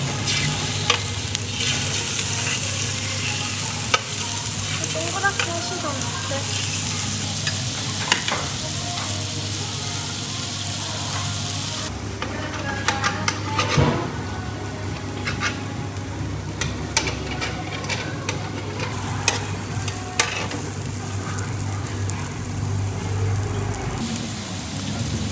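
Meat sizzling on a hot grill: a steady hiss with occasional sharp clicks.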